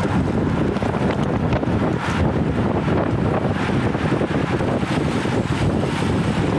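Steady wind noise rushing over a small action camera's microphone on a road bike moving at about 40 km/h, heaviest in the low rumble.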